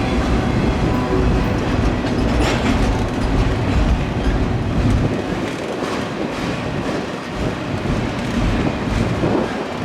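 Freight train cars rolling past on the rails, a steady rumble and rattle with occasional sharp clicks of wheels crossing rail joints. The low rumble thins out about halfway through.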